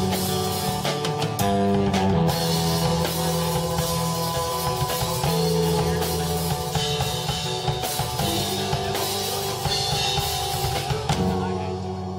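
Rock band playing live: drum kit and guitar over held low notes, dipping slightly in loudness near the end.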